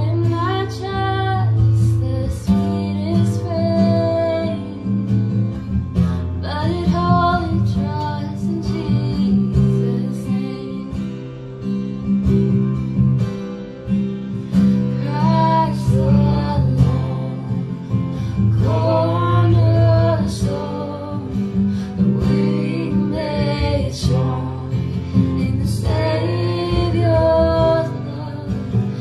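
Acoustic guitar strummed steadily under a woman singing a slow worship song.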